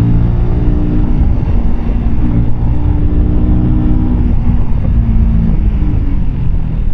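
Keeway K-Light 125's air-cooled V-twin engine running as the motorcycle is ridden, its pitch easing down a little in the second half, with wind rumble on the microphone.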